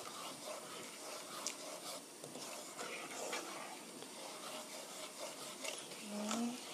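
Wooden spatula stirring a thickening milk-and-flour cream sauce in a nonstick pan, a soft rubbing scrape against the pan bottom. A short rising hum comes near the end.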